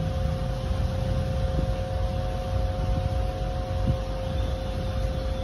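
A steady mechanical hum: two held, unchanging tones over a low, uneven rumble. A few faint light ticks from a cardboard box being handled.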